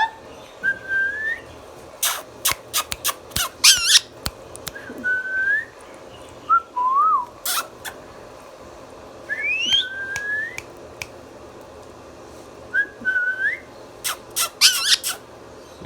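Indian ringneck parrot calling: short rising whistles broken by several quick bursts of shrill screeches, the loudest near the middle and again near the end.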